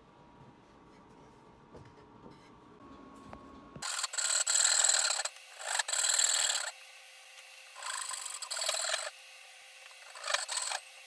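A hand tool scraping across the wood of a tenon being trimmed, in four long rasping strokes about a second each, starting about four seconds in.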